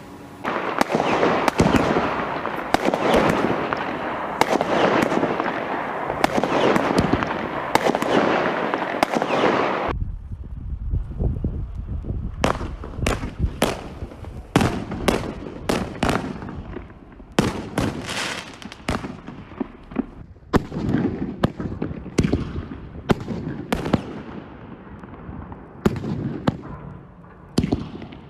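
Fireworks going off. Dense crackling with many bangs for about the first ten seconds, then an abrupt change to separate bangs in quick succession, each with a short echoing tail.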